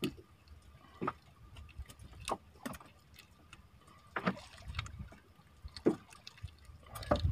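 Irregular sharp knocks and slaps, roughly one every second, as a small caught fish is handled and unhooked aboard a wooden fishing boat, over a low rumble of water against the hull.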